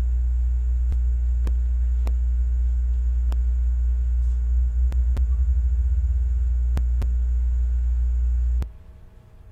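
Steady low electrical hum with faint clicks every half second or so; the hum wavers briefly in the middle, then cuts off suddenly near the end.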